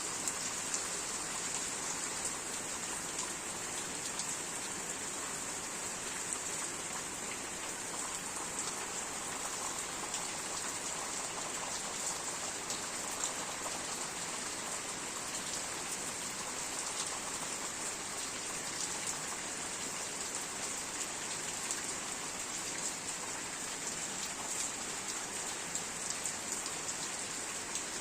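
Steady heavy rain falling and pattering on surfaces, with many fine drop ticks throughout.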